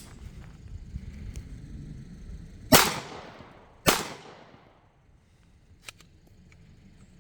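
Two pistol shots about a second apart, each ringing out with a long echoing tail, followed a couple of seconds later by two faint clicks.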